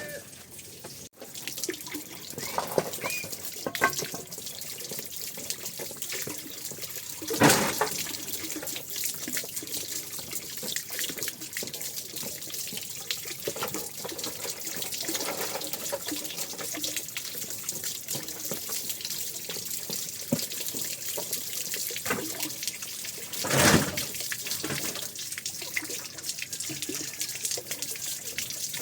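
Water running steadily, like a tap pouring into a basin, with two brief louder splashing surges, one about a quarter of the way in and one near the end.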